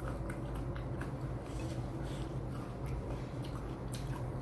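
A person chewing food with many small wet mouth clicks, over a steady low hum.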